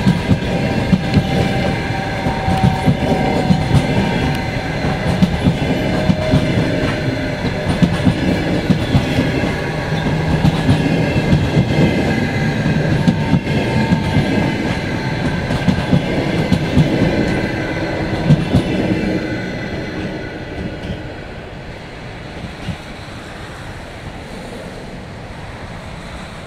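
Russian Railways passenger coaches rolling past, their wheels clattering on the rails, with steady ringing tones above the clatter. The sound fades away about nineteen seconds in as the last coach recedes.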